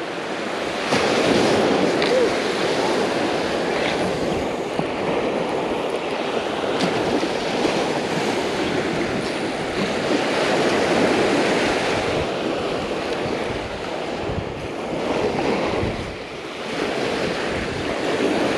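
Ocean surf breaking and washing up on a sandy beach, a steady rush that swells and eases as the waves come in.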